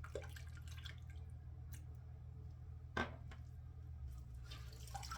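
Faint water dripping and splashing at a bathroom sink during a wet shave, with one sharp click about three seconds in, over a steady low hum.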